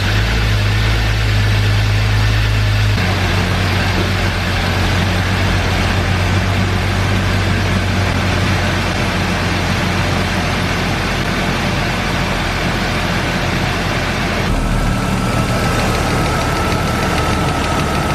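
BMW E36 straight-six idling steadily while it runs to bleed air from the cooling system after a head gasket replacement; the idle settles a little lower about three seconds in. A thin steady whine joins about fourteen seconds in.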